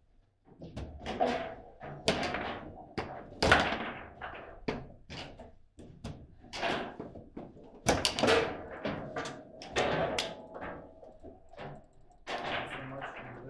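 Table football play: a quick, irregular series of hard knocks and cracks as the plastic figures strike the ball and the ball bangs around the table. The loudest hits come about three and a half and eight seconds in.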